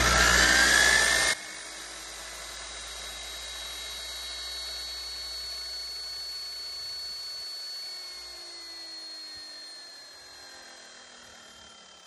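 Bauer 14-inch corded electric concrete saw running free at full speed with a steady high whine. The sound drops abruptly in volume just over a second in, where it was turned down in editing. About eight seconds in it is switched off and the whine falls in pitch as the blade coasts down on its own momentum, with no brake.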